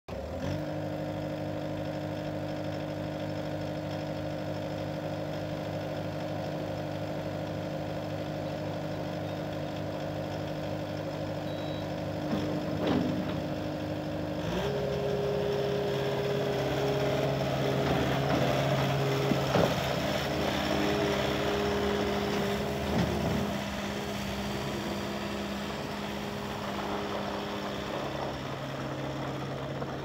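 Kubota SSV65 skid steer's diesel engine running at a steady idle; about halfway through the revs step up and hold at a higher, steady speed, with a few brief knocks while it runs faster.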